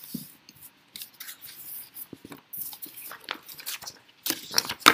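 Paper sheets rustling and crinkling with light knocks and clicks as a page of notes is moved and the camera is handled, with a cluster of louder crackles near the end.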